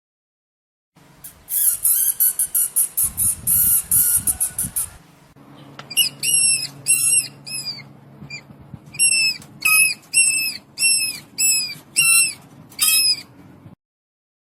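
Mouse squeak sound effect: starting about a second in, a fast run of high chittering squeaks for about four seconds, then a dozen or so separate high squeaks, each dipping in pitch, before it stops near the end.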